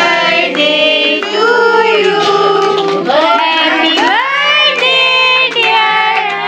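A group singing a birthday song, children's voices among them, in long held notes.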